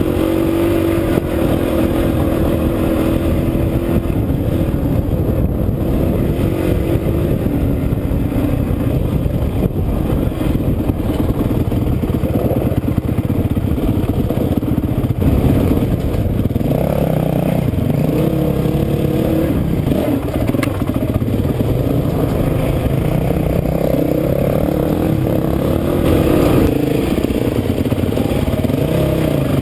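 Dirt bike engine running under way on a rough trail, its pitch rising and falling over and over as the throttle is worked, with knocks from the bike jolting over rocks.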